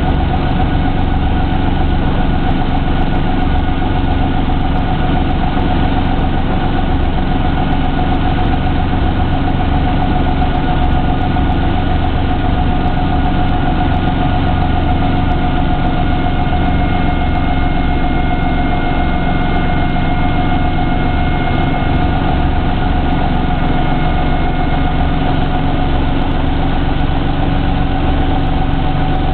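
Brantly helicopter's piston engine and rotor running steadily at ground-taxi power, heard from inside the cockpit as an even drone with a steady whine.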